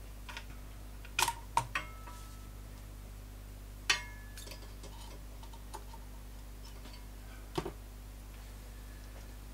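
A few short, irregular clicks and clacks of plastic test-lead hook clips and probes being handled and hooked onto the circuit board of an open amplifier, over a steady low hum.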